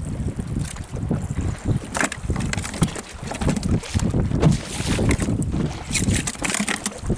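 Wind buffeting the microphone in uneven gusts aboard a small open boat at sea, with water splashing and slapping at the hull now and then.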